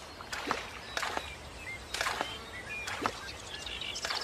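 Cartoon sound effects: a handful of brief, soft hits or steps at irregular spacing, with faint short chirps between them.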